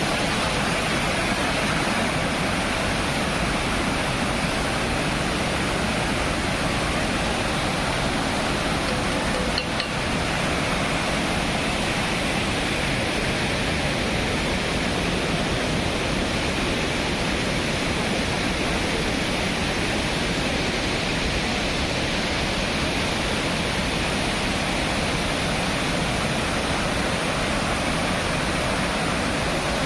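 Mountain river rushing steadily, a constant dense roar of water over rocks.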